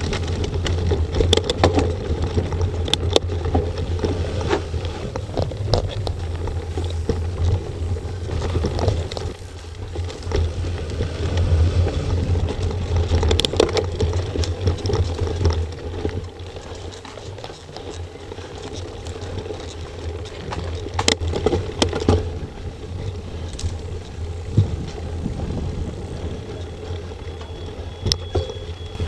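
Mountain bike riding fast over a rough forest trail, picked up by an on-board action camera: a continuous rumble of tyres and frame vibration with irregular rattles and knocks as the bike hits bumps. It eases to a quieter rumble a little past halfway.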